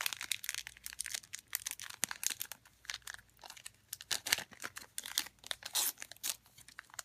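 A trading card pack's wrapper being torn open and crinkled by hand: a rapid, irregular run of crackles and rustles.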